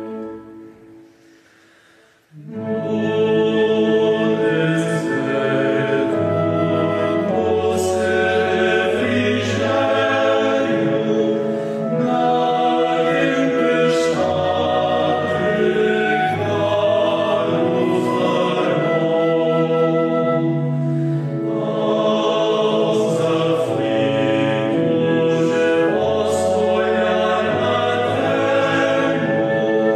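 Male choir singing a Portuguese hymn to Our Lady, accompanied by flute and pipe organ. A held chord dies away into a brief pause, and the singing starts again about two seconds in.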